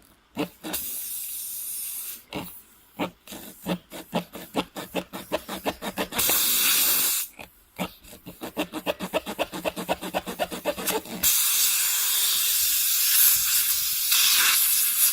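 Air hissing, first in quick rhythmic spurts at about three to four a second, then in a loud, steady hiss from about eleven seconds in.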